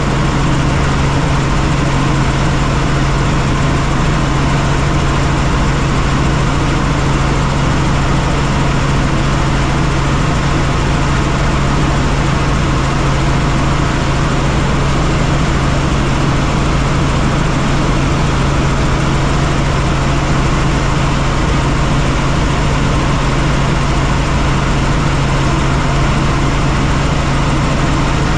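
Helicopter in flight: a loud, steady drone with a strong low hum under a wide, even hiss, unchanging throughout.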